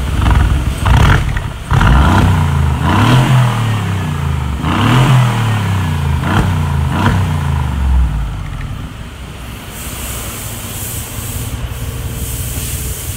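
Mercedes G-Wagon 4x4 squared's 4.0-litre twin-turbo V8, heard at the tailpipes of an Agency Power valvetronic exhaust with its valves open, revved several times, each rev rising and falling in pitch. About eight seconds in it drops back to a steady idle.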